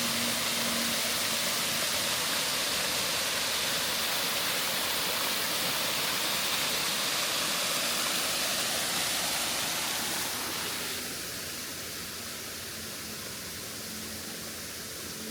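Rushing water of a waterfall: a steady, full hiss that drops to a quieter, thinner rush about ten seconds in.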